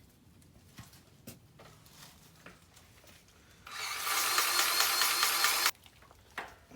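DeWalt 20V Max cordless grease gun's motor running, pumping grease into a fitting: a steady whine that starts about halfway through, runs for about two seconds, cuts off suddenly, then starts again at the very end. A few light clicks come before it.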